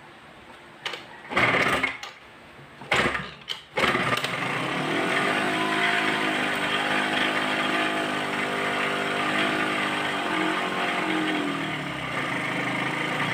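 Honda Dio scooter's small two-stroke engine catching in two short bursts, then running for about ten seconds with its revs drifting slightly up and down before it cuts out near the end.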